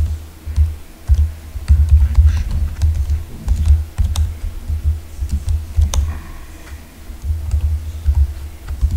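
Typing on a computer keyboard: irregular runs of key clicks and dull thumps.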